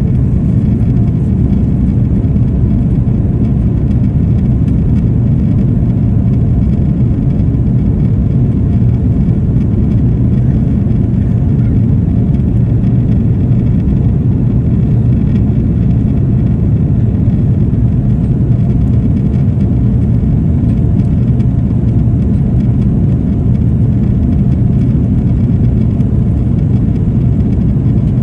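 Steady low rumble of a jet airliner in flight, its engines and rushing air heard from inside the passenger cabin.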